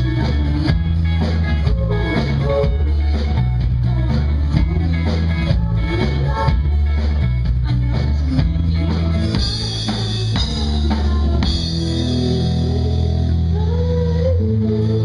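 Live pop-rock band playing, with electric guitars, bass, a drum kit and a woman singing lead. About nine seconds in the steady drumbeat thins out, leaving held chords ringing.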